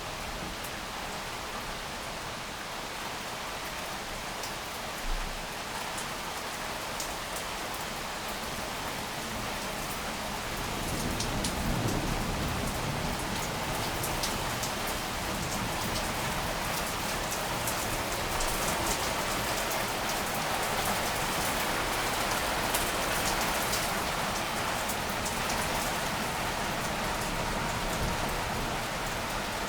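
Heavy rain pouring steadily in a thunderstorm, getting heavier about eleven seconds in, with individual drops ticking close by. A short low rumble of thunder comes at the same point.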